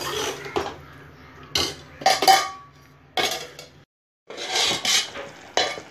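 Clatter of an aluminium cooking pot and its lid: a spoon knocking against the pot and the lid being handled and set on, several separate clanks, the loudest about two seconds in with a short metallic ring.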